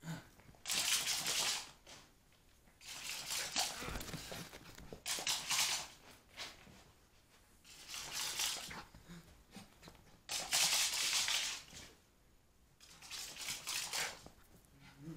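Six bursts of scratchy rustling noise, each about a second or a second and a half long, with short quiet gaps between.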